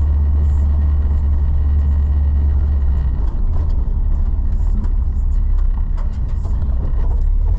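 1981 Chevrolet C10 pickup driving, heard from inside the cab: a steady low engine and road drone that eases a little in the middle.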